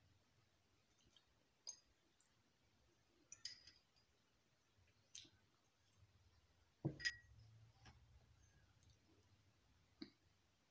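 Faint, scattered clicks and clinks of a metal fork against glass dishes during eating. The loudest is a knock with a clink about seven seconds in.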